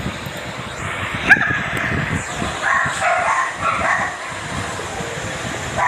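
Dachshund barking: one sharp, loud yip about a second and a half in, then a quick string of shorter yelps over the next second or so.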